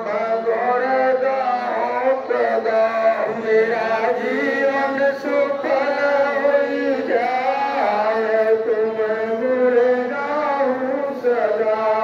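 A group of voices chanting a devotional song together, a sung melody with long held notes.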